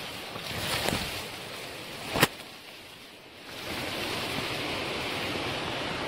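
Leaves and grass brushing and rustling against a handheld camera on an overgrown footpath, over a steady rushing noise. A single sharp click stands out about two seconds in, and the rush dips for a moment after it.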